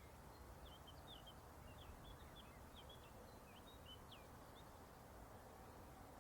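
Faint bird chirping: a quick run of short, high notes lasting about four seconds, over a quiet, steady low background noise.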